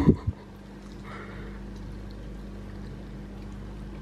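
A toddler's short vocal squeal, falling in pitch and cut off just after the start, then a steady low hum.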